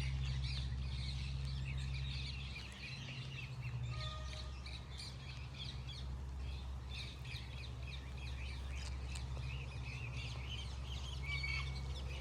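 Many small aviary birds chirping and twittering continuously, over a steady low hum.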